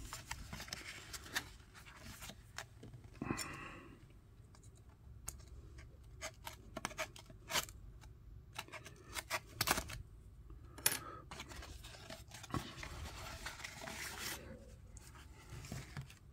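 Thin cardboard card box being torn and prised open by hand: scattered sharp clicks and crinkles with short tearing rustles, and a longer rustle later on.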